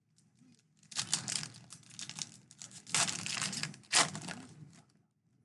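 A foil trading-card pack wrapper crinkling and tearing open in the hands, with louder rips about three and four seconds in.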